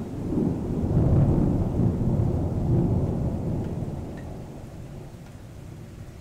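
Thunder rumbling: a low rolling rumble that swells about a second in, then dies away over the last few seconds, with rain hissing steadily underneath.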